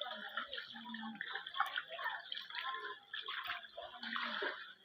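Faint ambience of floodwater moving, with scattered distant voices of people.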